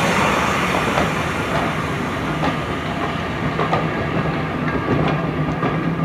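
Victorian railway carriages rolling past behind a steam train, their wheels clicking over the rail joints every second or so under a steady rumble, easing slightly as the train draws away.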